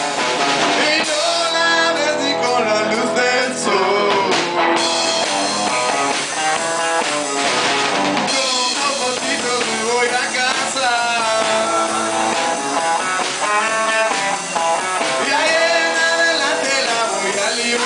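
Live band playing a rock-blues song: a singer over guitar and drum kit.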